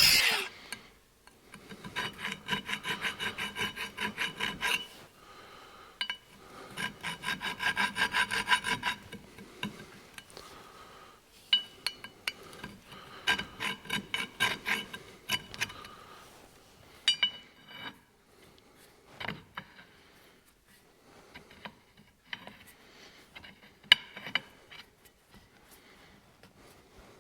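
Quick back-and-forth strokes of a hand tool scraping and filing on the steel threads of a hydraulic cylinder rod, about four a second, with a metallic ring. They come in runs of a few seconds, then give way to scattered clicks and knocks. The threads are being cleaned up after leftover thread was ground off.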